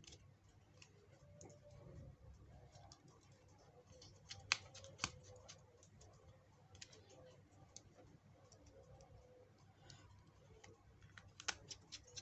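Faint clicks and light scraping of a small screwdriver turning screws into a plastic phone case, with a few sharper clicks about four to five seconds in and again near the end.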